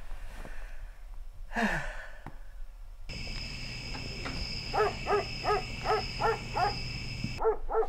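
Quiet room tone, then a steady high ringing that starts about three seconds in and stops abruptly near the end. Over it, from about five seconds in, an animal gives a run of short, evenly spaced yelping calls, about three a second.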